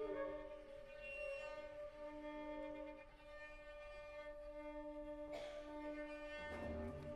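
Bowed strings (violins, viola and cello) holding long, quiet sustained notes in a contemporary chamber piece. Near the end come two short noisy swells about a second apart.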